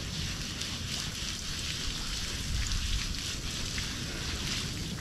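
Outdoor shower water spraying steadily onto a person and splashing on the cobblestones, with a low wind rumble on the microphone.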